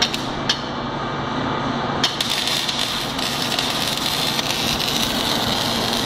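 MIG welding arc from an ESAB Digipulse 450i welder, struck about two seconds in and then crackling steadily as the wire feeds, over a steady machine hum. Two sharp clicks come just before the arc.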